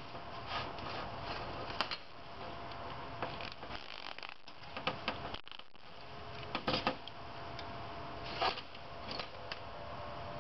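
Hands handling heater wires and high-temperature wire shielding on a waste oil burner's nozzle line assembly: scattered light clicks, rustles and taps over a steady background hiss, with a few sharper clicks a little past the middle and again near the end.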